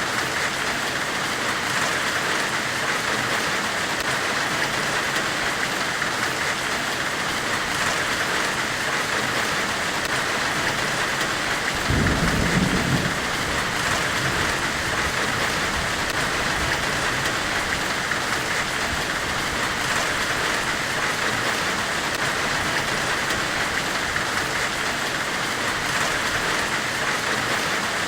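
Steady, even white-noise hiss made as a forge-welding ambience. About halfway through, a low rumble swells for about a second.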